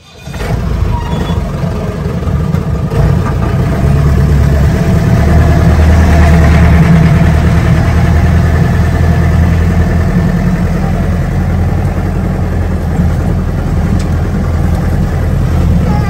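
Jeep engine running under load on an off-road track: a steady, loud drone that builds about five seconds in and then holds.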